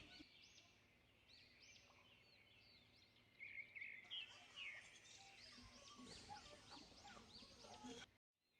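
Faint chirping of small birds, many short repeated calls overlapping, growing a little louder about three seconds in and cutting off suddenly near the end.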